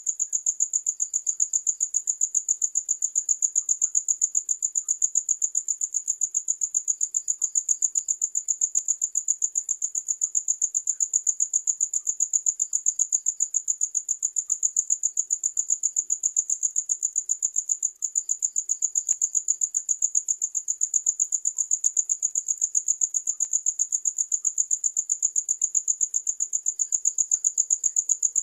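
Cricket chirping in a fast, even, unbroken pulse of high-pitched chirps, with fainter short trills from other insects every few seconds.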